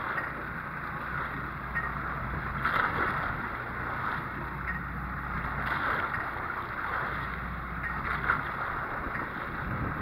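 Wind and sea noise on a boat at sea, swelling every few seconds, over a low steady hum.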